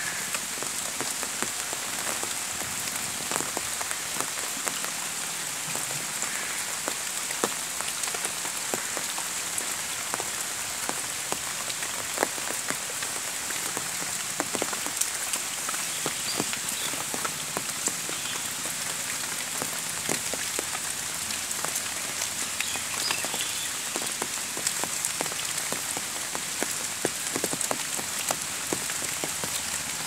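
Steady rainfall on dense foliage: an even hiss with many individual drops striking close by.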